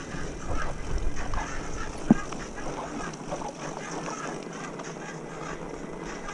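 Fat-tire mountain bike rolling over a wet dirt trail: tyre and frame rattle with many short clicks, and one sharp knock about two seconds in.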